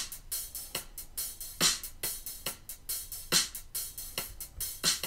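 GarageBand Drummer track on the SoCal Kit playing a laid-back drum groove at 70 beats per minute: a strong hit about every 1.7 seconds with lighter hi-hat strokes between.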